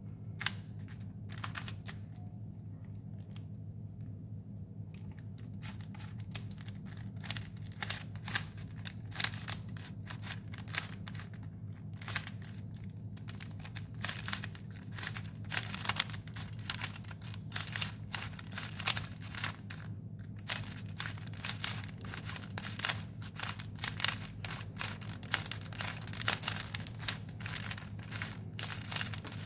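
3x3 plastic Rubik's cube having its layers turned by hand, a fast run of clicks and clacks. The turns are sparse for the first few seconds and then come thick and quick, over a steady low hum.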